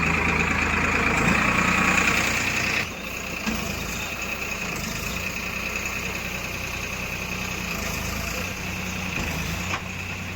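Heavy diesel engine running steadily. The sound is louder, with a higher whine on top, for the first three seconds or so, then settles lower and steady.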